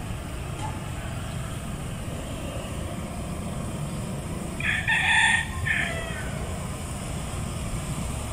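A rooster crows once, about four and a half seconds in, a single call of just over a second with a falling tail, over a steady low rumble.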